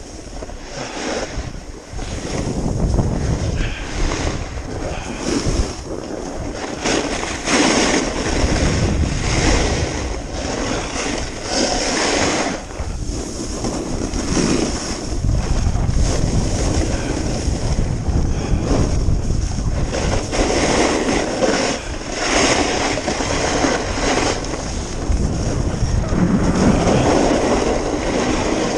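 Wind buffeting the microphone during a fast downhill run, mixed with the hiss and scrape of edges carving packed snow. It swells and fades every second or two with the turns.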